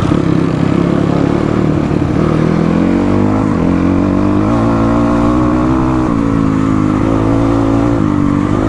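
Motorcycle engine running under way. Its pitch rises as it accelerates from about two and a half seconds in, drops about six seconds in, then holds steady.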